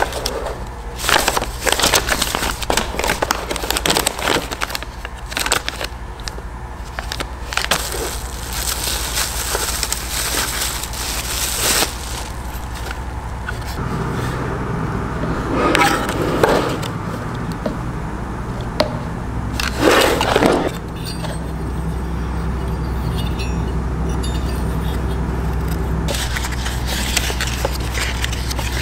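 Paper and cardboard packaging being handled: a folded instruction sheet and a small box rustling and crackling in quick bursts through the first dozen seconds. After that the handling is sparser, with two louder rustles over a steady low hum.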